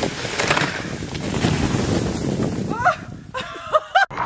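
Snow being shoveled off a roof: a long scraping rush of sliding snow, then a few short yelps and shouts near the end before it cuts off abruptly.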